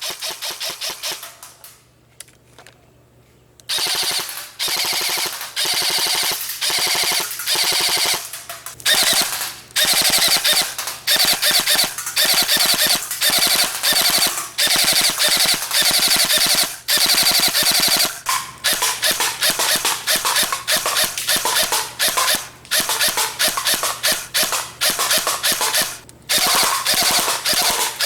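Electric airsoft M4 rifle (a Matrix electric gearbox fitted in a Wilson Combat AR-15 upper) firing in repeated full-auto bursts, each about a second of rapid rattling shots, after a brief pause near the start.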